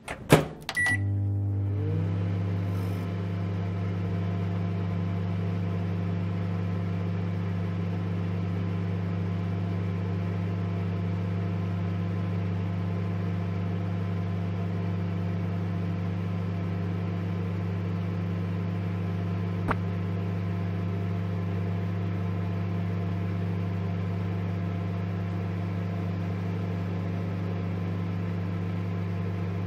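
Microwave oven heating a slice of bread, running with a steady low hum that starts after a click and a short beep about a second in. There is a single faint tick about two-thirds of the way through.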